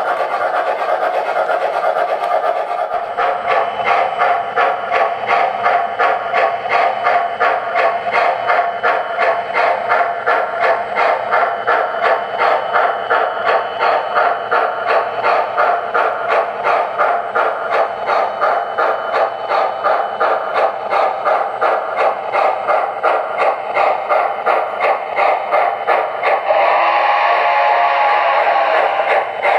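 Electronic steam-chuff sound effects from the speaker of an MTH Premier Shay O-gauge model locomotive's Proto-Sound 2 system, beating evenly at about two chuffs a second. Near the end the chuffing gives way to a whistle blast of about two seconds, then resumes.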